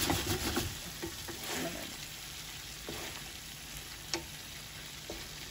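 Fried chicken wings being stirred and turned in buffalo sauce in a nonstick frying pan, wet stirring noises loudest in the first second. A sharp click about four seconds in and a smaller one about a second later.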